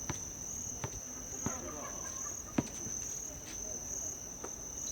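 Crickets chirping steadily in a high, pulsing trill, with a few sharp thumps spaced a second or so apart, the loudest about two and a half seconds in.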